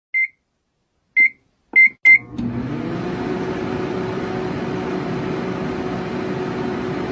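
Four short high electronic beeps in quick succession, then a steady machine hum with a low tone starts and keeps running.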